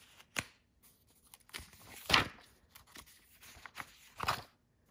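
Paper pages of a plastic comb-bound workbook being turned by hand: a handful of short paper swishes and rustles, the loudest about two seconds in.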